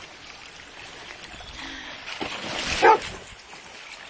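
A dog barks once, loudly, about three seconds in, amid splashing water.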